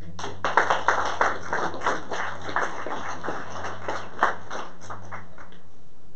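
Small audience applauding: many people clapping at once, dense and irregular.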